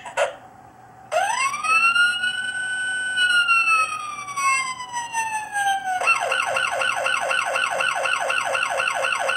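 Electronic American police siren from the built-in speaker of a Jada Toys radio-controlled Ford Police Interceptor. About a second in it rises into a long wail that slowly falls in pitch, then at about six seconds it switches to a fast yelp of about four warbles a second.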